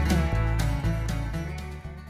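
Channel intro music fading out.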